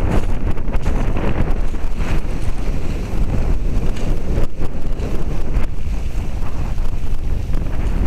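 Wind buffeting a tiny keychain-camera microphone: a loud, unsteady low rumble that covers everything else.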